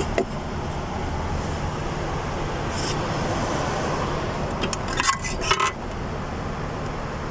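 A car engine idling steadily, with a few sharp metallic clinks of tools about five seconds in.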